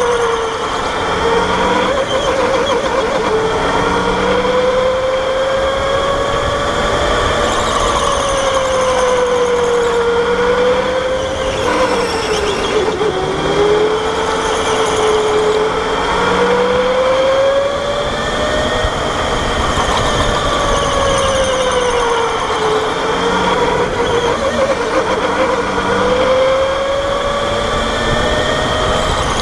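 Electric go-kart's motor whining as it laps, its pitch rising as the kart speeds up and dipping into the corners, over and over. A steady high-pitched tone runs underneath.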